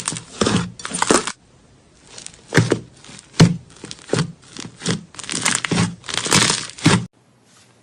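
Slime being squeezed and pressed by hand: irregular wet squishes and crackles, pausing briefly about a second in and stopping shortly before the end.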